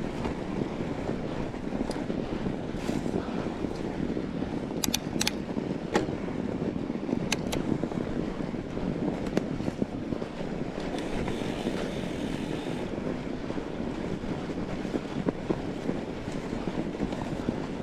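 Steady rolling noise from a fat bike riding over a snowy trail, with wind on the microphone and a few sharp clicks from the bike near the middle.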